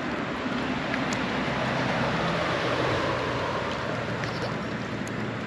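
Steady rushing noise of water and wind around a kayak moving along the lake.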